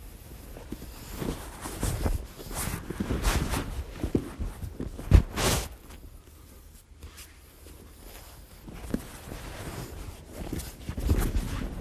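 Jiu-jitsu grapplers drilling an omoplata and its escape on mats: gi cloth rustling and bodies thudding and shuffling on the mat. The loudest thump comes about five seconds in, then a quieter few seconds before the movement picks up again near the end.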